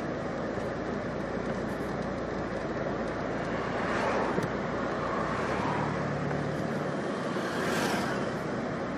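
Street traffic noise: a steady road hum, with vehicles passing about four seconds in and again near the end.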